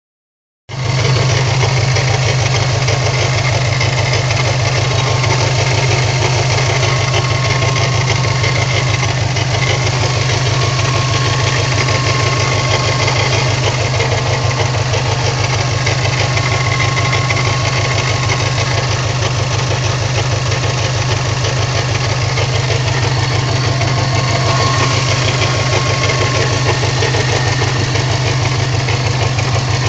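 Subaru Impreza WRX turbocharged flat-four engine running steadily, with a rapid, even ticking/knocking in its note. The owner reports the tick comes and goes at town speeds and does not know its cause.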